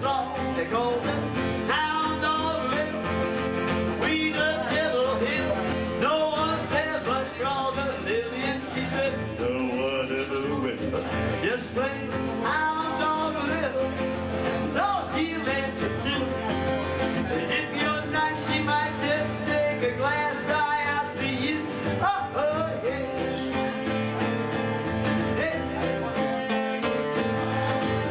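Live acoustic guitar playing a country-blues song, with a man singing at times.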